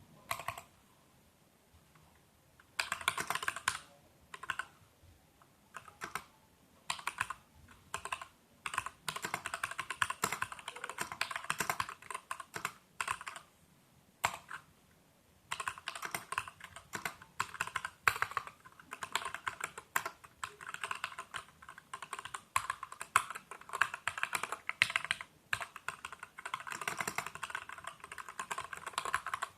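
Typing on a Varmilo VA68M mechanical keyboard with Gateron Clear linear switches: quick runs of key clacks in bursts, broken by short pauses, with a few single keystrokes near the start.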